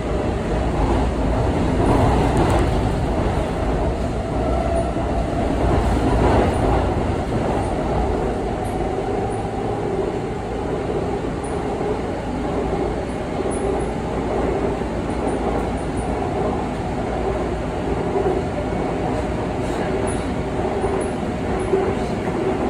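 Seoul Line 2 electric train (2000-series EMU) running, heard from inside the passenger car: a steady rumble of wheels on rail with a faint steady tone over it.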